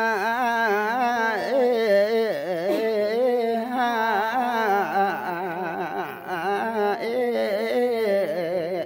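Unaccompanied singing of a traditional Limbu song: one voice holding a continuous, wavering melody with heavy vibrato.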